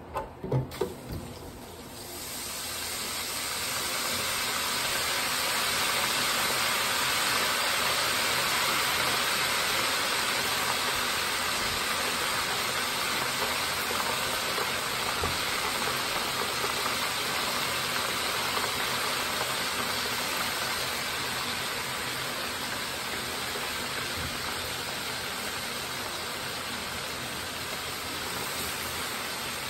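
A few light knocks, then hot oil in a deep fryer sizzling as catfish nuggets fry. The sizzle builds over a couple of seconds, then holds as a steady hiss that eases off slightly near the end.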